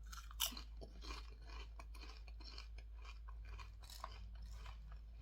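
Close-miked chewing of crunchy Caramucho spicy chili tomato potato chips: a continuous run of small crunches and crackles, with one sharper crunch about half a second in.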